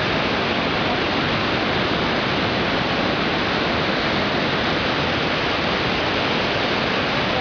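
Loud, steady rushing of water with no pauses or changes.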